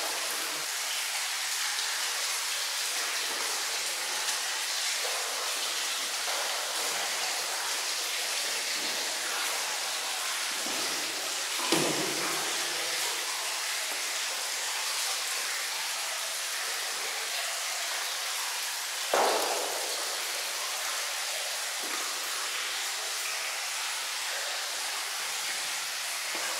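Steady watery hiss of a Turkish bath foam wash, with two brief, sharper sounds about 12 and 19 seconds in.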